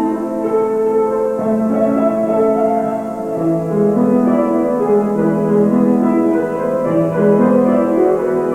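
Slow instrumental keyboard music with long held notes that shift in steps every second or so, with no singing.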